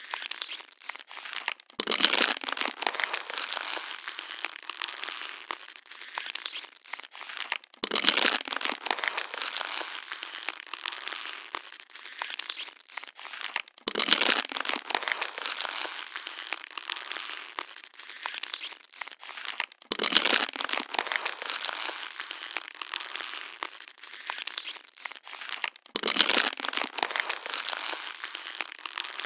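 Plastic water bottle being crushed, crinkling and crackling without a break, with a louder crunch about every six seconds.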